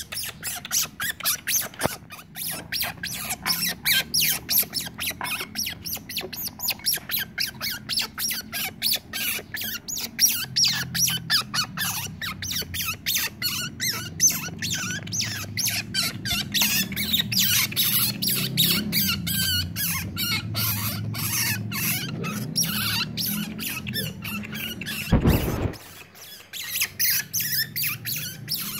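Otter pup calling with rapid, repeated high-pitched squeaks, about three or four a second, almost without pause. A brief low bump near the end.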